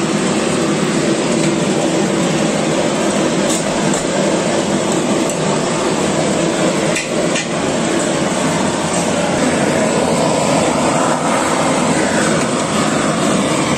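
Gas blowtorch burning with a steady loud hiss as it singes the hair off a goat carcass, with a few light clicks scattered through it.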